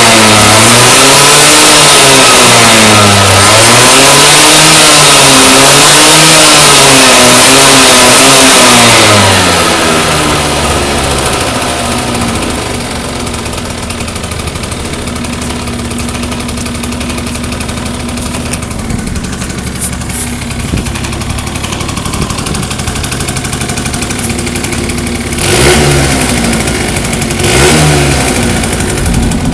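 Benelli Quattronove 49X 50 cc scooter engine revved up and down several times on its stand. It then drops to a steady idle about ten seconds in, with two short throttle blips near the end.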